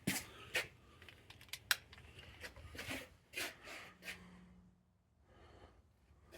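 A quick run of small sharp clicks and light rubbing from handling, thinning out after about four seconds, with a short low hum around then.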